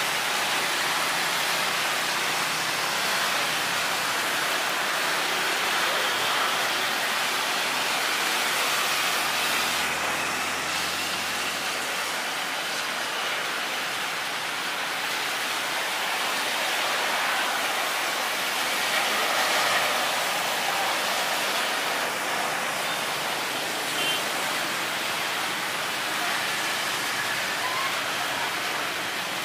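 Steady hiss of rain falling, even and unchanging.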